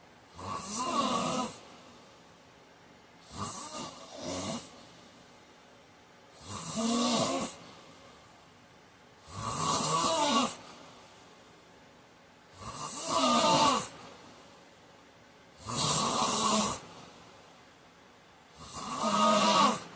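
A man snoring loudly in his sleep: seven snores at a steady rhythm about three seconds apart, each about a second long. The second snore is quieter and broken into two short parts.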